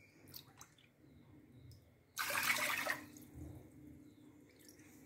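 Water poured from a glass bowl into a pan of sugar for sugar syrup, a short splashing pour of under a second about two seconds in.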